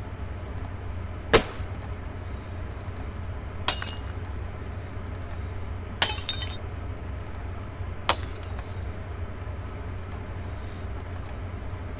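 Glass-breaking sound effects played one after another: four separate smashes about two seconds apart, each a sudden crash with a short tinkling trail of shards. A low steady hum runs underneath.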